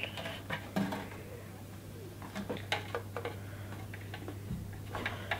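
Irregular small clicks and taps of plastic being handled as clear plastic tubing is fitted onto a plastic toy volcano model, over a steady low hum.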